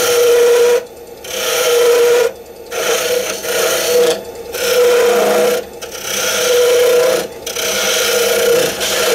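Skew chisel cutting into a wooden spindle spinning on a wood lathe, in about six passes of roughly a second each with short pauses between, shavings hissing off the edge.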